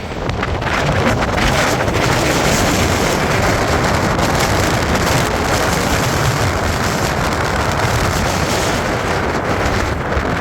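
Storm-force wind gusting to 60–70 mph and buffeting the microphone, a loud, rough, continuous rush that strengthens about a second in and holds.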